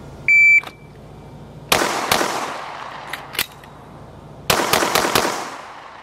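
A shot timer beeps once to start, then a handgun fires two quick shots, a couple of clicks follow as the pistol is reloaded, and four more shots come in fast cadence. This is a timed Fundamental Accuracy and Speed Test run: two shots, a slide-lock reload, then four shots.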